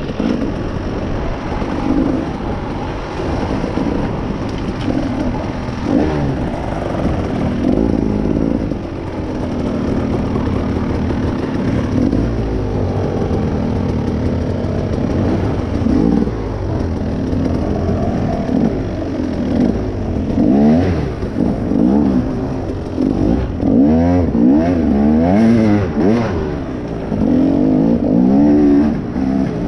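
Off-road vehicle engine revving up and down again and again, its pitch rising and falling with the throttle, the revs coming faster and louder in the last few seconds.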